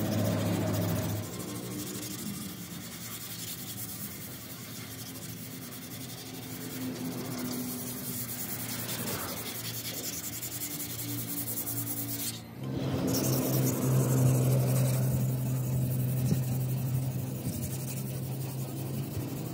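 Wet sandpaper on a block being rubbed back and forth over a tractor's bare sheet-metal hood and side panels, a steady scratchy rubbing. A low steady hum sits underneath and grows louder after a short break about two-thirds of the way through.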